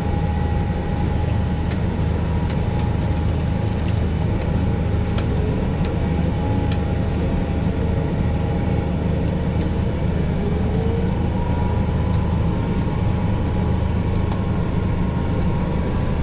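A Fendt Vario tractor's engine and a Kverneland round baler running steadily under load while baling, heard from inside the tractor cab. The drone is deep and even, with a thin steady whine above it and occasional faint ticks.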